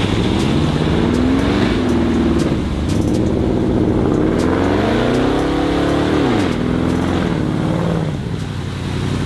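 Range Rover's engine revving under load as it drives through deep mud and water. The pitch rises and falls several times, climbs highest a little past the middle, then drops away.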